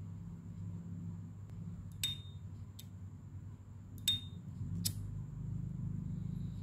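Gold-plated S.T. Dupont Ligne 2 lighter lid flipped open twice with a short bright ringing 'cling', about two and four seconds in, with a drier click between them. A further sharp click comes a little before the five-second mark, as the lighter is struck and lights.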